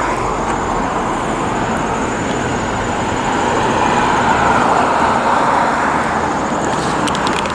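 Steady road traffic noise: cars going by on the street, swelling slightly midway.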